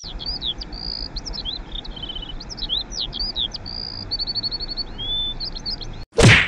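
A songbird singing a long run of varied whistled notes, chirps, up-and-down glides and quick trills, over a steady rush of flowing river water.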